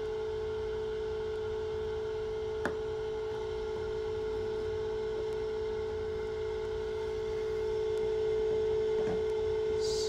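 Steady mid-pitched hum of a running egg incubator, with fainter higher tones above it. A light tap sounds once about two and a half seconds in.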